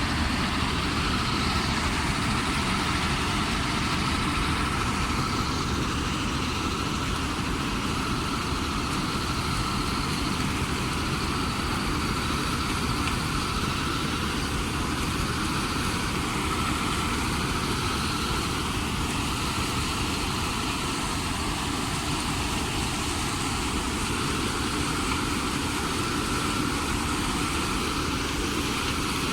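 Combine harvester running steadily in a corn harvest: an even engine and machinery drone with a steady whine.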